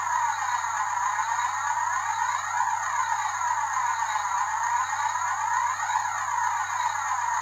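Electronic background music: a steady synthesized drone with a whooshing sweep that rises and falls about every three and a half seconds, over a constant low hum.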